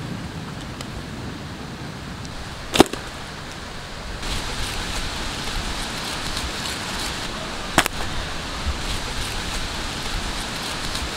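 Knife cutting and scraping through a large stingray's skin and flesh, a dense scraping with many small ticks from about four seconds in. Two sharp knocks, about three and eight seconds in, stand out, the first the loudest.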